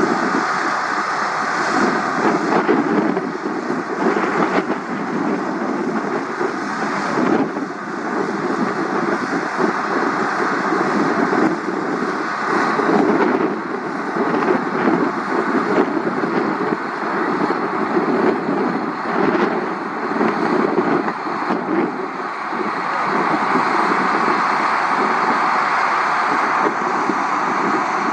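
Steady, loud aircraft engine noise with wind buffeting the microphone.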